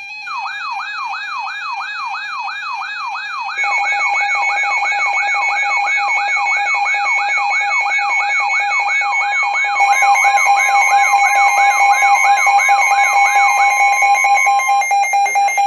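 Layered electronic emergency alert tones. A siren-like sweep repeats about two and a half times a second over steady alarm tones, and more steady tones come in, growing louder, about three and a half and ten seconds in. The tones signal an incoming weather warning broadcast.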